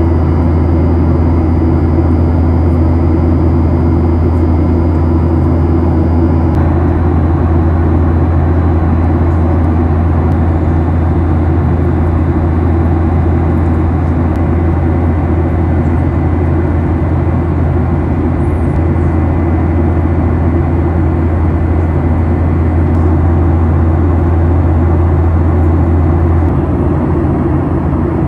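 Steady, loud cabin noise of a Boeing 737-800 heard from inside the main cabin: a deep drone from its CFM56 jet engines under an even rushing hiss. A couple of faint steady tones drop out about six seconds in.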